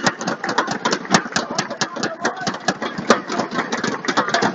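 Arena crowd between rallies: rapid, uneven clapping from many spectators over a constant hubbub of crowd chatter.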